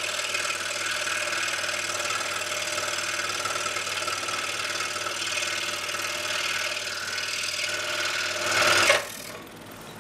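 Scroll saw running with a precision-ground-tooth blade, cutting a straight line through a wooden table-leg blank: a steady mechanical buzz with several steady tones. Just before nine seconds in it swells briefly, then drops sharply to a quieter steady run.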